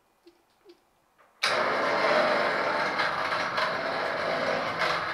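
A machine motor starts abruptly about a second and a half in and runs steadily and loudly for a few seconds, after a few faint clicks.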